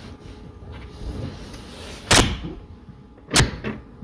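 Two loud clunks of a car's latch being worked, the first about two seconds in and the second about a second later.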